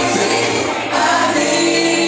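A vocal group singing a worship song together over musical accompaniment, the voices held on sustained notes.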